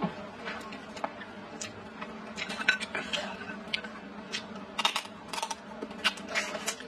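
Wooden chopsticks clicking against a bowl, with eating sounds: a string of short sharp clicks over a steady faint hum.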